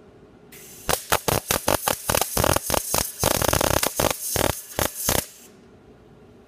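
MIG welder arc crackling and spitting irregularly as a single-pass seam weld is run along a sheet-metal box edge. It starts about a second in and stops about a second before the end, over a steady hiss that begins just before the first crackle and cuts off just after the last.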